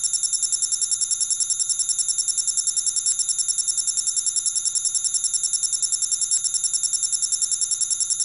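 Electronic ringing sound effect: a loud, high trilling tone pulsing rapidly at about ten beats a second, like a telephone ring, that starts abruptly and holds steady.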